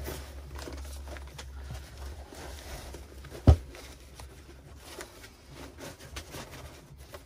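A plastic baitboat hull being packed into a soft camo carry bag: fabric rustling and light knocks, with one loud thump about three and a half seconds in.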